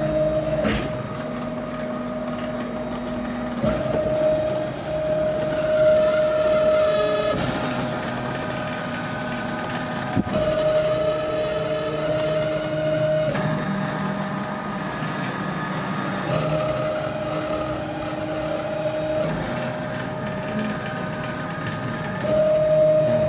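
CNC router's axis drive motors running as the machine moves a pen across paper, a steady whine that switches to a new pitch every few seconds as the moves change.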